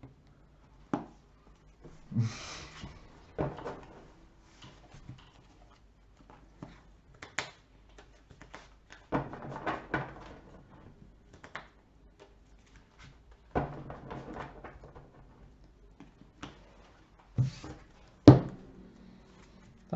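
Scattered soft clicks, knocks and short rustles of playing cards being handled and set down on a table, with a louder knock near the end.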